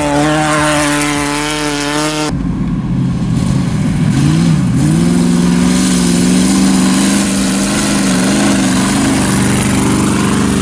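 Off-road race vehicle engine revving, its pitch wavering, then after an abrupt change about two seconds in, it dips briefly and climbs back to hold steady high revs.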